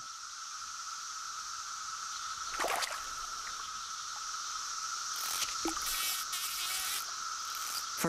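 A chorus of periodical cicadas droning steadily at a high, even pitch and swelling slightly louder. A short sudden sound cuts through it about two and a half seconds in.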